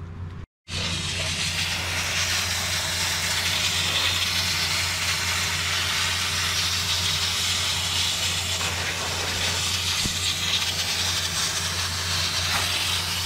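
Water spraying from a Radiator Genie wand on a garden hose into an ATV radiator, a steady hiss that starts abruptly about half a second in.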